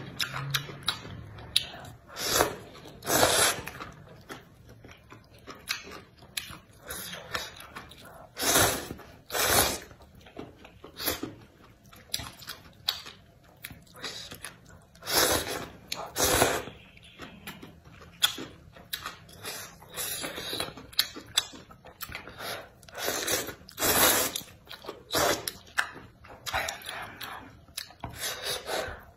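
Noodles in spicy broth being slurped up from chopsticks: a series of short, loud slurps a few seconds apart, with quieter chewing and wet mouth sounds between.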